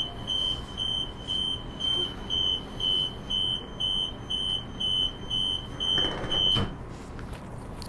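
Door-closing warning on a Transperth Bombardier B-series electric train: a single high beep repeating about twice a second. The beeping stops about six and a half seconds in, with a short rush and a thud as the doors shut.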